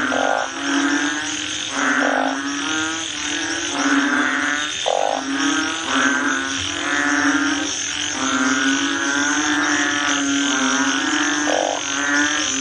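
Frogs croaking: a rough, low call repeating every second or two over a steady high hiss.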